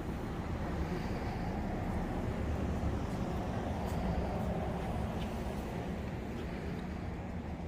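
Steady road and engine noise inside a moving car, a low even rumble.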